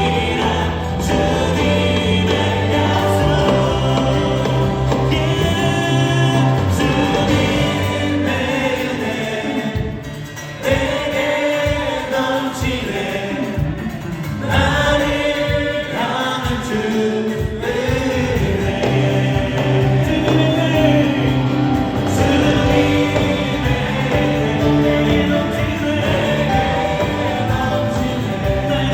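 Live Korean gospel praise music: a worship team's singers in chorus over keyboard, electric guitar, bass guitar and drums, with a brief dip in loudness about ten seconds in.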